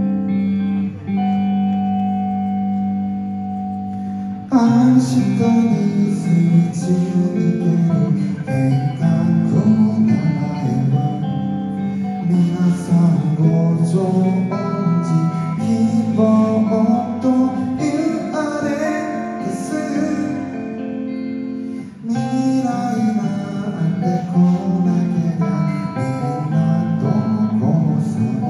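Live rock band music: a soft opening of held guitar and keyboard chords, then about four and a half seconds in the full band comes in with drums, electric guitars and keyboards and plays on.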